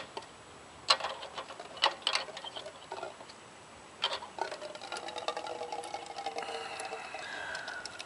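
Small clicks and ticks as the drain bolt on a Honda GX160's carburetor float bowl is loosened. From about four seconds in, a thin trickle of gasoline runs out of the bowl into a cup as the bowl drains.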